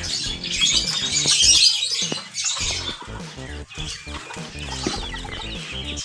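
Many caged birds chirping and twittering together in a dense chorus, loudest in the first two seconds and thinning out after that.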